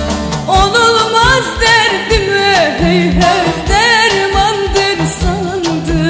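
Background music: a song with a solo singing voice that wavers and ornaments its pitch, over a steady beat.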